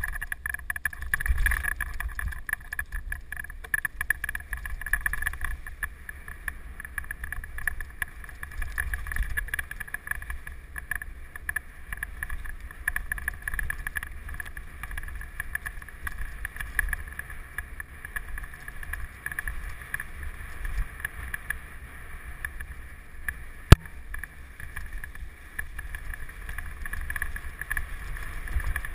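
Mountain bike riding fast over a rough, leaf-covered dirt trail, heard through a bike-mounted action camera: a continuous rumble from the tyres and wind buffeting the microphone, with irregular small rattles from the bike. One sharp knock stands out near the end.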